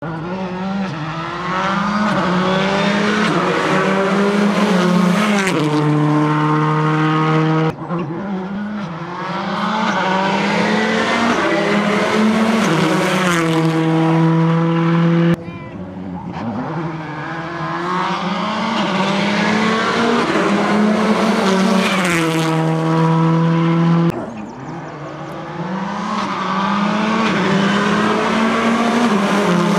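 Rally cars driven hard on a stage, engines revving up and down through the gears. Four separate passes are cut together, each building to a long, steady high-revving note.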